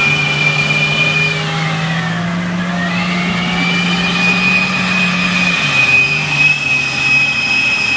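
Two 4x4 engines, a Nissan Patrol 3.3 six-cylinder and a Mitsubishi L200 2.5 TDI, held at high, steady revs under load in a tug-of-war on a tow strap. A high whine dips and recovers about two seconds in, and the low engine note steps down about five and a half seconds in.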